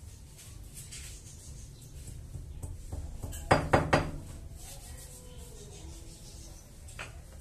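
Small metal blind-mounting hardware (L-shaped bracket and screws) handled against the window frame: light rubbing and clicking, with a quick run of three or four sharp metallic clinks about halfway through and one more click near the end.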